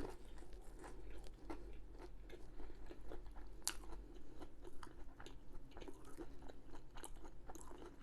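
A person chewing and biting food close to the microphone: many small, irregular crunches and mouth clicks, with one sharper crunch about halfway through.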